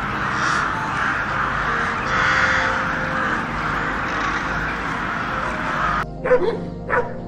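A flock of crows cawing together in a dense, unbroken chorus. About six seconds in it cuts off abruptly, and a Siberian husky gives two short barks.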